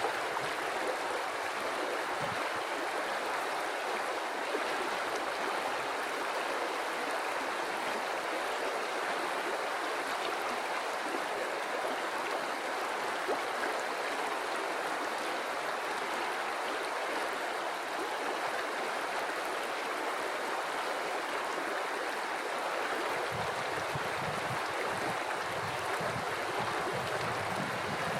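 River water flowing in a steady, unbroken rush. A low rumble joins about three-quarters of the way through.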